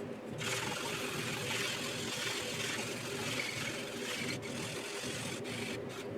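Fine 600-grit sanding sponge rubbed in circles over the plastic surface of a scale model aircraft: a steady scratchy hiss that starts about half a second in and breaks off briefly a few times near the end. A steady low hum runs underneath.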